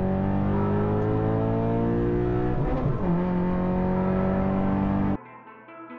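Scion FR-S's flat-four engine, with an aftermarket header and muffler delete, heard from inside the car's stripped cabin as it drives: a loud note that climbs slowly in pitch, dips briefly about three seconds in, then holds steady. It cuts off suddenly about five seconds in, and soft background music takes over.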